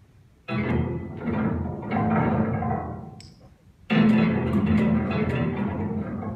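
Prepared piano played with hard percussive strikes. Three struck chords come in quick succession about half a second in and ring out and fade; a heavier strike about four seconds in rings on and dies away near the end.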